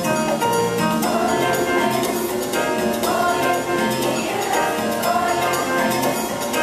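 Girls' choir singing with double basses playing a steady line of low notes underneath.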